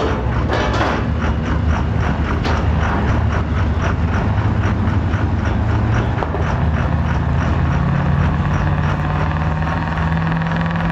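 Diesel pickup engines running loud, with a steady rhythmic clatter over a low drone. Near the end one engine's tone climbs slightly as it is revved.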